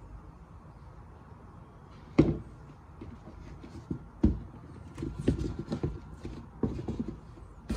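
Handling noise from a pair of sneakers being turned over and set down on their cardboard shoebox: a sharp knock about two seconds in, another a little after four seconds, then a run of lighter knocks and rubbing between about five and seven seconds.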